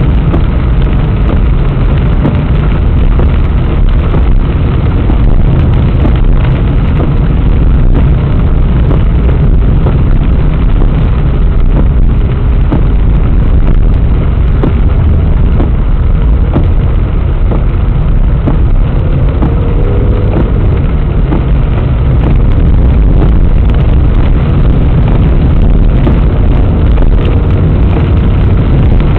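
A car driving at about 55–60 km/h on a wet road, heard from inside through a dashcam microphone: a steady, loud, deep engine and tyre rumble with scattered light ticks.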